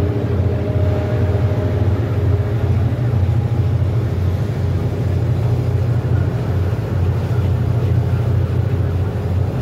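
A tuna fishing boat's engines and deck machinery running with a steady, loud low drone that does not change.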